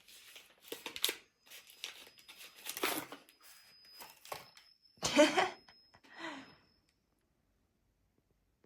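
Paper crinkling and tearing in short rustles and rips, the loudest about five seconds in, then dead silence for the last two seconds.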